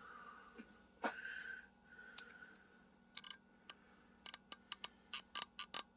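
Small metal clicks and a brief scrape as a tool works a stuck part on a Rochester Quadrajet carburetor. In the second half these turn into a quick run of sharp clicks, several a second, as the part is wiggled back and forth.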